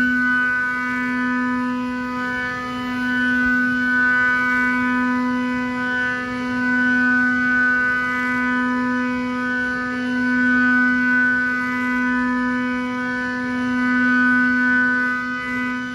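Haas UMC-750SS spindle driving a six-flute ceramic end mill through Inconel 625 at high speed: a loud, steady whine of constant pitch with several tones at once. The unchanging sound is the sign of a stable cut that keeps running without trouble.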